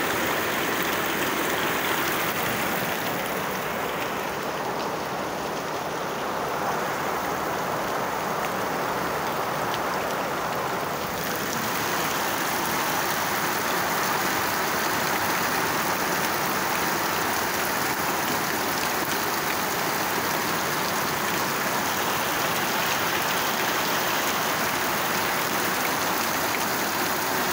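Heavy typhoon rain pouring steadily onto a wet street. It eases slightly a few seconds in and picks up again after about eleven seconds.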